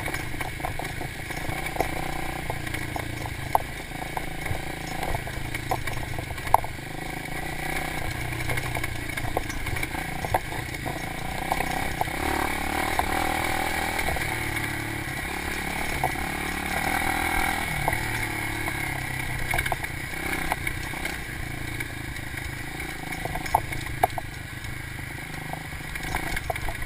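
Dirt bike engine running at low trail speed, with scattered sharp knocks and clatter from the bike over rough ground.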